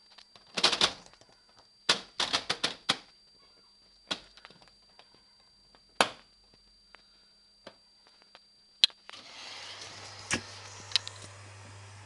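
Sharp plastic clicks and taps on a Tricity Bendix AW1053W washing machine's control panel: a quick cluster, then about six in a row, then single ones. Right after a last click, about nine seconds in, a steady hiss over a low hum starts, typical of the machine's water inlet valve opening as the wash begins to fill.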